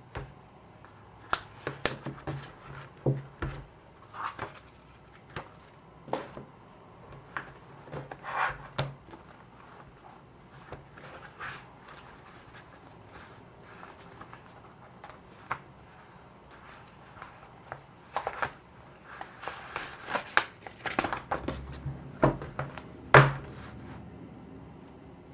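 A traveler's notebook and its paper insert handled on a wooden desk: scattered taps and knocks as it is set down, with paper rustling as the pages are turned. The knocks and rustles come thicker and louder near the end, as the insert is laid flat and pressed down.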